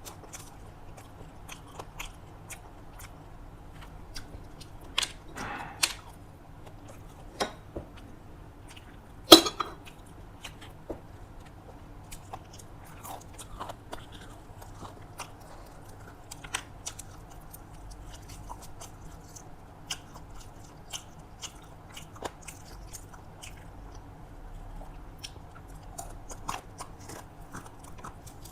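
Close-miked chewing of a meal of rice and fried vegetables: wet mouth clicks and smacks at irregular intervals, with a louder click about nine seconds in.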